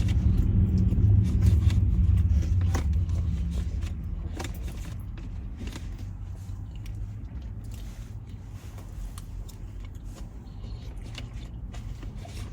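Low motor-vehicle rumble, loud at first and fading over the first four seconds to a lower steady background, with a few faint clicks.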